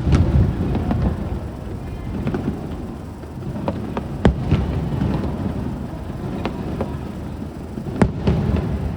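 Aerial fireworks shells bursting: three sharp bangs, at the start, about four seconds in and about eight seconds in, over a continuous low rumble of booms, with scattered fainter cracks.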